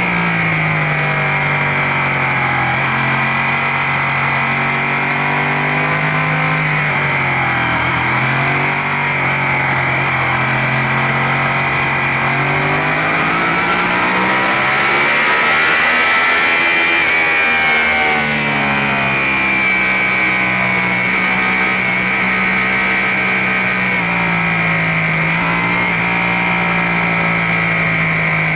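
Sportbike engine running under throttle in third gear, its note falling, then climbing and dropping again as the rider works through corners, with a steady rush of wind over the onboard microphone.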